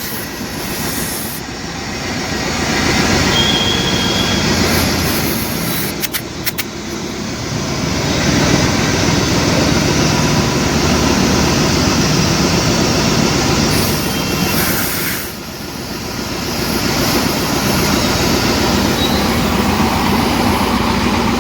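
Engine running steadily with a loud low rumble, easing off briefly a couple of times, with a few sharp clicks about a quarter of the way through.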